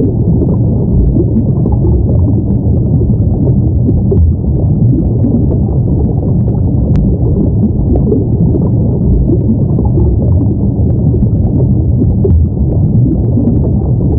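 Underwater ambience: a steady, muffled low rumble with nothing high-pitched in it.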